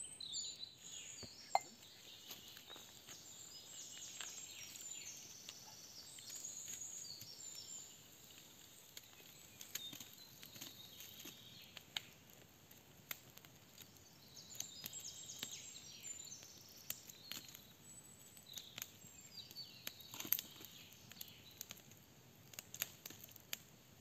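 Songbirds calling in woodland in several spells, over scattered sharp clicks and snaps from a wood campfire being tended, with one louder snap about a second and a half in and another near twenty seconds.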